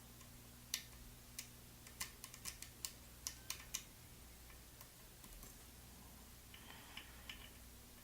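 Faint, irregular small clicks of a lock pick working the pins inside an ASSA Twin Combi lock, with a quick run of clicks about two to four seconds in, over a low steady hum.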